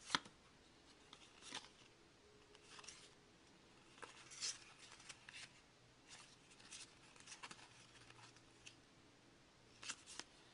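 Faint, scattered rustles and light snaps of hockey trading cards being handled and flipped through as a pack is opened, about a dozen short sounds in all.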